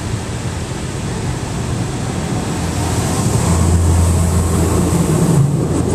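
Automatic car wash heard from inside the car: water spraying against the windshield and body as a steady hiss. A low hum from the wash machinery comes in about halfway through, and the level rises as the car moves under it.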